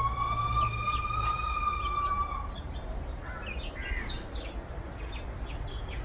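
A passing train's wheels squealing in one long, high, slightly wavering note over a low rumble, ending about two and a half seconds in. After it, birds chirp in short calls.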